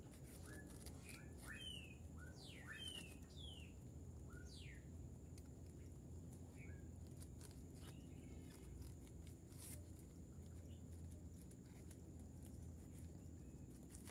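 Faint bird chirps: a string of short, sliding calls in the first five seconds or so, then only an occasional chirp, over a low steady rumble.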